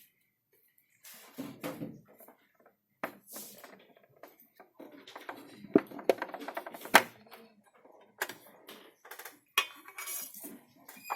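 Handling noises from unboxing a wristwatch: irregular rustling and scraping of the packaging with small knocks and clicks, two sharp clicks standing out near the middle.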